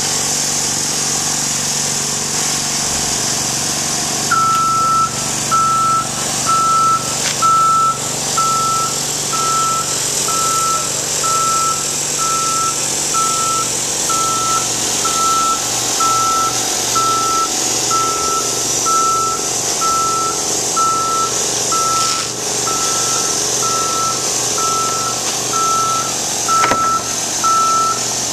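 Aerial work lift's motion alarm beeping about once a second, starting about four seconds in, over the steady running of the lift's engine as the platform moves.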